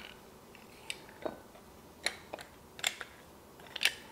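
Handheld plastic lime squeezer pressing lime halves over a glass measuring cup: about six short clicks and taps, spaced irregularly.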